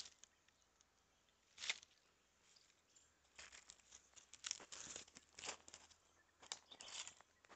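Faint, scattered rustling and crinkling of pomegranate leaves and branches brushing past, once just under two seconds in and then in clusters from about three and a half to seven seconds.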